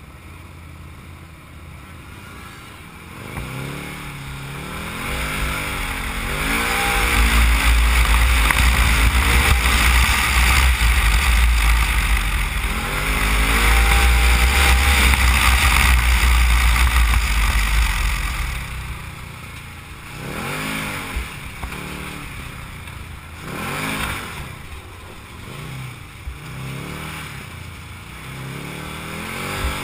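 Can-Am Maverick side-by-side's V-twin engine revving up and easing off again and again under hard driving. A heavy low rumble of wind on the microphone at speed runs through the middle stretch.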